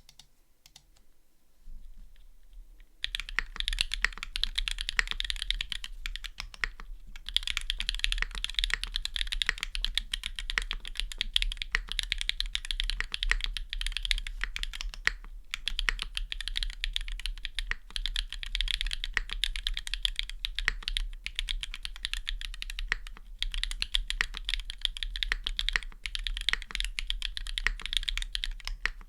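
Fast, continuous typing on a Machina Cloudnine custom mechanical keyboard with Gateron Deepping switches, an aluminium plate and GMK keycaps. The keystrokes start about three seconds in and pause briefly once.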